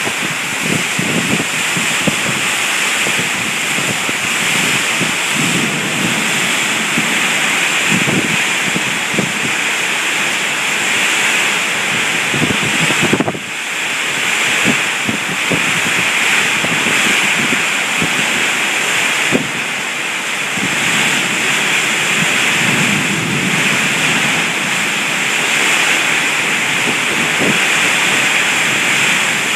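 Heavy rain from a thunderstorm falling steadily, a dense hiss with close drops and splashes pattering through it.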